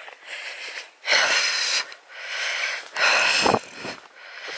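Heavy, wheezy breathing of a walker close to the microphone: hoarse breaths in and out about once a second.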